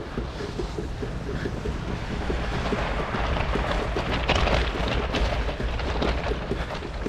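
Wind buffeting the microphone during a fat bike ride through snow: a constant low rumble with a rapid crackle underneath. A louder rush of noise swells in the middle and eases off toward the end.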